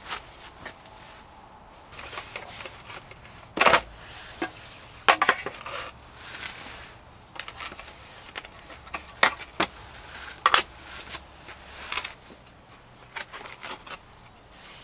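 Interlocking metal floor plates clattering and clinking as they are picked up, stacked and slid into a fabric carry bag: a string of separate sharp knocks a second or two apart, with light rustling between them.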